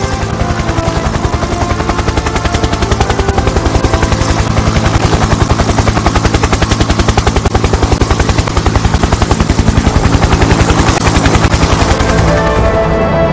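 Robinson R44 helicopter's main rotor chopping in a fast, even beat with the engine running, as it hovers over snow and lifts off. It grows louder over the first few seconds and fades near the end.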